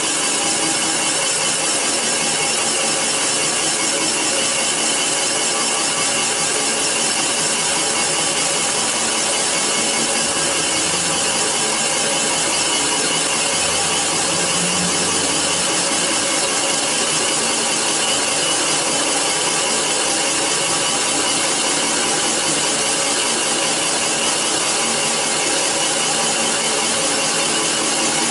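Comec CNC cylinder boring machine taking a cut in an iron engine block: the boring tool's insert cutting metal with a steady, unbroken grinding hiss laced with high ringing tones.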